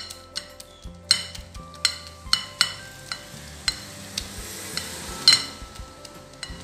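Whisk beating an egg in a glass bowl, clinking sharply against the glass about ten times at an uneven pace, with a soft stirring swish between strikes. The loudest clink comes about five seconds in.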